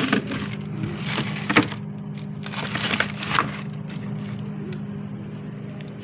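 Plastic freezer drawers and an ice cube tray being handled: a few short scraping, crackling clatters, the sharpest about a second and a half in and again a little after three seconds, over a steady low hum.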